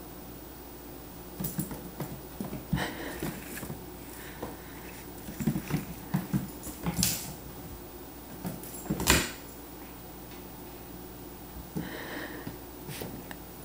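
A puppy and a tabby cat play-fighting on a hardwood floor: irregular scuffles and paw scrabbles, with a couple of short puppy noises and one louder thump about nine seconds in.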